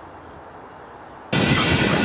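Faint steady outdoor background, then about a second and a half in, a sudden cut to the loud running sound of a small steam tank locomotive heard from its footplate: steam hissing over the rumble and clatter of the wheels.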